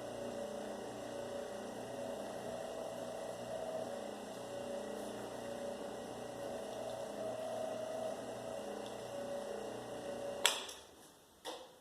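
Electric wire stripping machine's motor humming steadily. It cuts off with a sharp click about ten and a half seconds in, and a second click follows about a second later.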